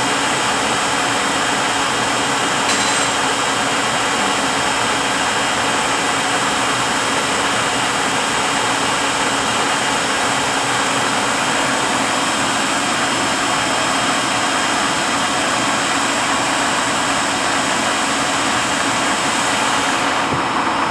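Rebuilt Eaton Fuller RTLO-18918B 18-speed truck transmission spinning on a test dyno: a steady mechanical whir with several constant high whining tones of the gears, as the rebuild is tested under running.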